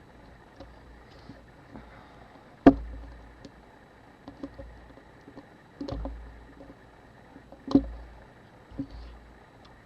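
Small tools and camera parts handled on a workbench during disassembly of a Canon AE-1 camera: about four sharp knocks with short dull thuds, the loudest under three seconds in, among scattered light clicks.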